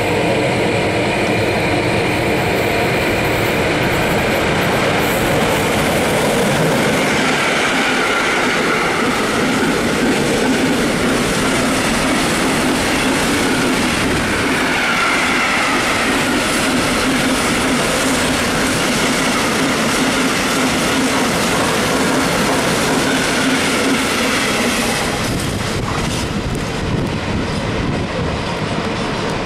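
Container freight train hauled by a Traxx electric locomotive passing close by: a loud, steady rumble of wagon wheels on the rails. A wavering high wheel squeal rises twice, about 7 and 15 seconds in. The noise eases slightly near the end as the last wagons go by.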